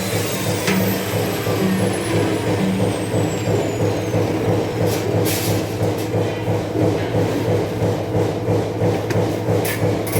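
Machinery running with a steady hum and a fast, even pulsing.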